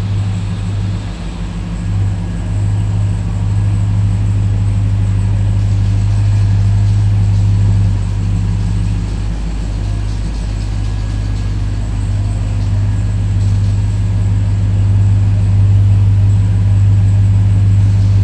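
Supercharged 6.2-litre Hemi V8 of a 2021 Ram TRX idling: a loud, steady, low engine note that holds one pitch throughout.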